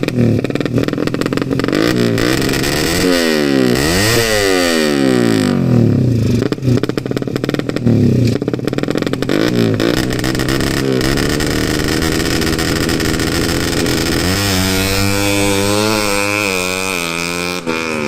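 Ported, race-tuned Suzuki Satria FU motorcycle engine revving hard, its pitch climbing and dropping sharply several times, then held high, with a wavering high-rev run near the end.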